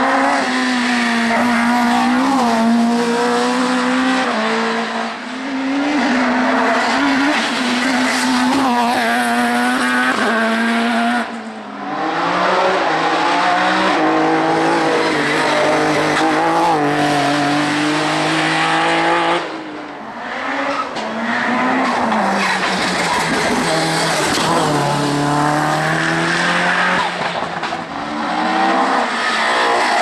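Modified hillclimb touring cars, a VW Golf Mk1 and then a BMW E30 among them, passing one after another at full throttle. The engines rev hard, their pitch rising and falling through gear changes and lifts, with tyre squeal in the bend. There are short breaks about 11 and 19 seconds in between one car and the next.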